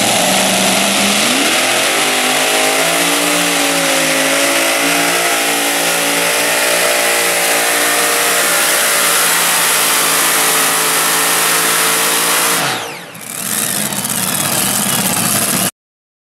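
Multi-engine modified pulling tractor running at full throttle as it pulls the sled. The engine note climbs about a second and a half in and holds steady. Near the end the pitch falls sharply, and the sound then cuts off abruptly.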